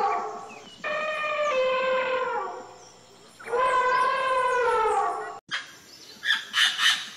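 African elephant trumpeting three times, each a long call of one to two seconds whose pitch arches and then falls away. Near the end a parrot gives three short, harsh squawks.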